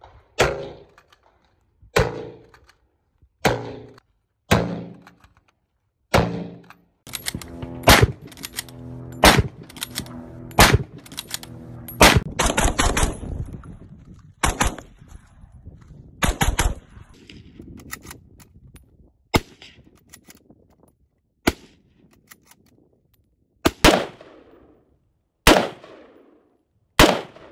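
Rifle shots from several rifles fired in turn, among them a bolt-action M38 Carcano and AR-15-type carbines. Mostly single shots a second or two apart, with a faster run of shots about a third of the way in.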